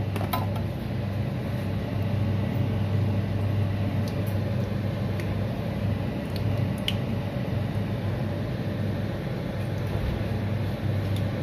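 Pork skin pieces frying in oil in a pan, a soft sizzle with a few faint pops, over a steady low hum that is the loudest sound throughout.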